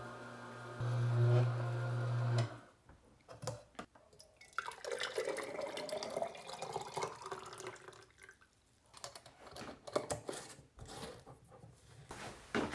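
Kuvings Auto 10 Plus slow juicer's motor humming steadily, louder about a second in, then stopping about two and a half seconds in. Liquid drips and trickles after it, with a rising pitch for a couple of seconds in the middle.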